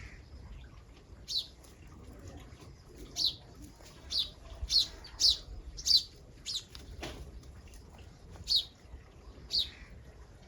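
Wild birds at a fruit feeder calling: about ten short, sharp high chirps at irregular intervals, the loudest bunched together in the middle.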